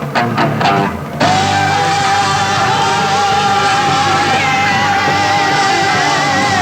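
Rock band playing live: a quick run of drum hits, then about a second in the band lands on a sustained chord under a long held sung note, with a wavering high line joining partway through.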